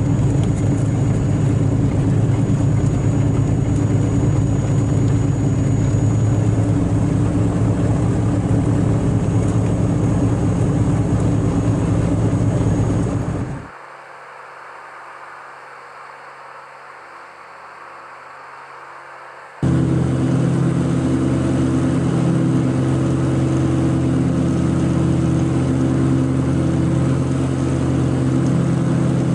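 Twin piston engines of an Aero Commander 520 heard from inside the cockpit, a steady, even drone at power. About fourteen seconds in the sound drops to a much quieter level for about six seconds, then comes back abruptly at full strength.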